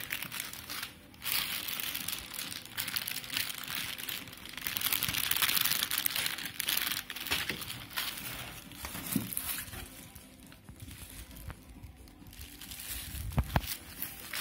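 Clear plastic bags holding the monitor's cables crinkling and rustling as they are handled, loudest in the first half. Then a couple of short knocks, the louder one near the end.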